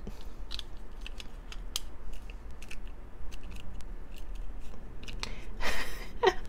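Hard plastic toy parts clicking and tapping as a snap-on costume shell is fitted over a 1995 McDonald's Halloween Happy Meal figure, then a short stretch of crinkling plastic wrapper near the end.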